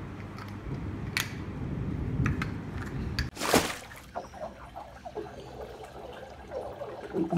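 Aquarium water bubbling and trickling over a low steady hum, with a brief louder rush about three and a half seconds in.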